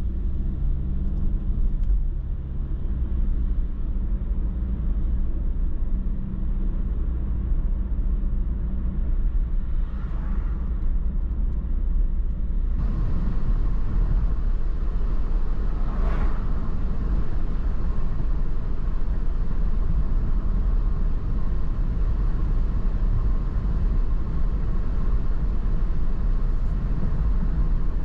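Steady low rumble of a car being driven, tyre and engine noise heard from inside the cabin through a dash-mounted GoPro. Two brief swells of noise come through, about ten and sixteen seconds in.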